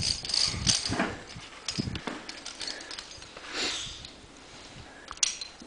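A climber moving up rock on a via ferrata: irregular scuffs and knocks of boots, hands and clipped gear, with a sharp click just after five seconds and a breath about halfway through.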